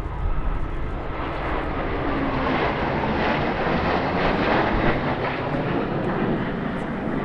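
Jet noise from Blue Angels F/A-18 Hornets passing, jumping up sharply at the start and loudest about four to five seconds in.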